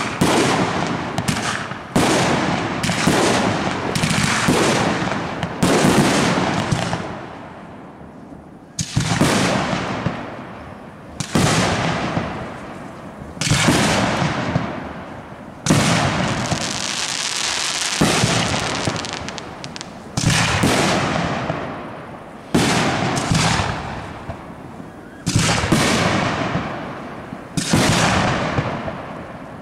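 Aerial firework shells bursting in a steady sequence: about a dozen sharp bangs, one every one to three seconds, each trailing off in a rolling echo. About halfway through there is a couple of seconds of steady high hiss.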